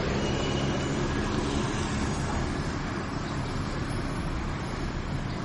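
Steady street traffic noise with a low vehicle engine hum that fades about two seconds in.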